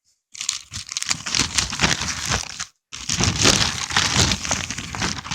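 Packaging being torn open and crumpled by hand: two long stretches of crinkling and tearing with a brief pause near the middle.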